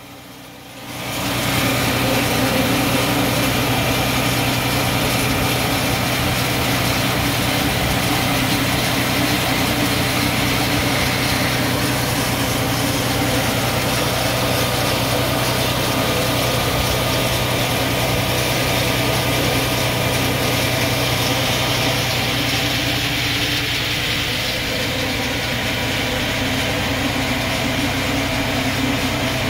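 Farm tractor engine running steadily while pulling a riding weeder through the field, a continuous even hum that comes up about a second in.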